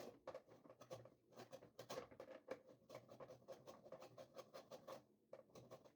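Lemon rind being zested on a hand grater: faint, quick scraping strokes, several a second, irregular.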